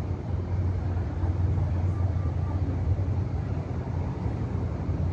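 Steady low outdoor rumble with a noisy haze above it, its loudness wavering slightly.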